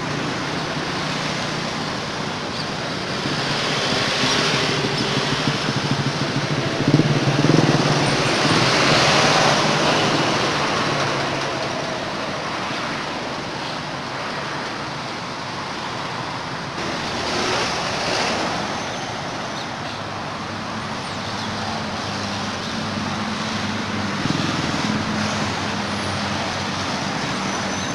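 Steady road traffic noise with a low hum, swelling louder a few times as vehicles pass.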